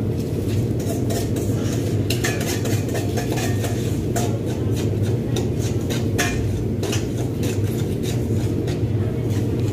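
Restaurant background noise: a steady low hum with scattered clinks and clatter of dishes and cutlery.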